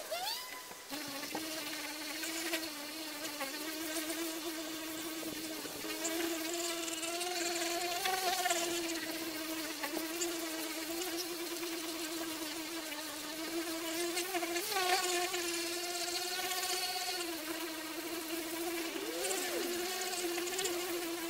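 Cheap electric car polisher running with its buffing pad pressed against a plastic headlight lens: a steady buzzing hum whose pitch wavers a little under the pressure. It starts up about a second in and stops at the end.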